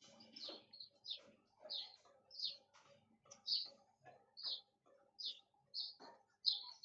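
A small bird chirping over and over: short, high chirps, many dropping slightly in pitch, about one or two a second. Faint rubbing as a whiteboard is wiped clean lies underneath.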